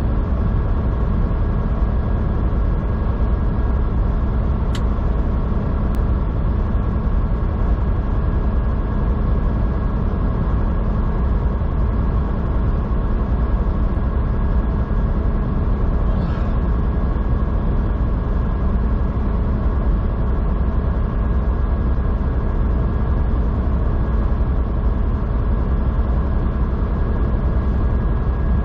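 Semi truck's diesel engine pulling steadily up a long highway grade, heard from inside the cab as an even low drone with road noise.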